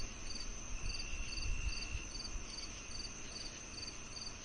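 Insects chirping in an even rhythm, about two short high chirps a second, over a steady high-pitched hum and a low rumble; a second steady tone drops out about two seconds in.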